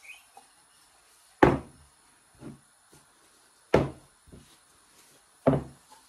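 Glass candle vessels set down one after another on a wooden tabletop: three sharp knocks about two seconds apart, with softer taps between.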